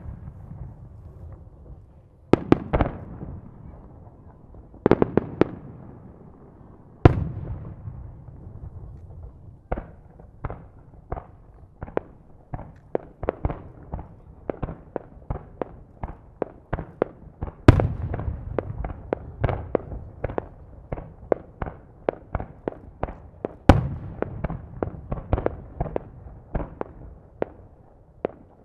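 Aerial fireworks shells bursting. A few heavy booms with rumbling echoes come first, then a rapid barrage of bangs, two or three a second, with the loudest booms well into the barrage.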